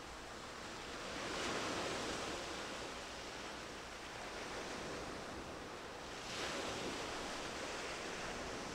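Sea waves washing in as a steady hiss of surf, swelling about a second and a half in and again about six and a half seconds in.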